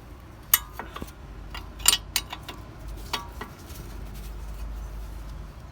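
Metal clinks from undoing the brake caliper carrier's 18mm bolts with a spanner: a few sharp clinks of steel on steel, about half a second, two seconds and three seconds in.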